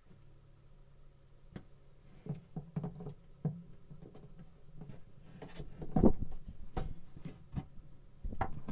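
Reinforced PVC water hose and its metal hose clamp being worked onto a tank fitting by hand: irregular knocks, clicks and rubbing, loudest about six seconds in and again near the end.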